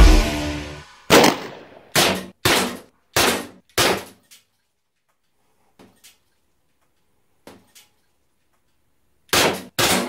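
Umarex Walther PPQ T4E .43-calibre CO2 pistol firing lead balls: five sharp shots in quick succession, then a pause with a few faint clicks, then two more shots near the end. The tail of rock music fades out in the first second.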